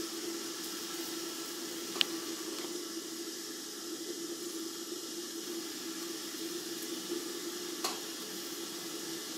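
A protein pancake sizzling softly in a frying pan, over a steady low hum, with a sharp click about two seconds in and a lighter one near the end.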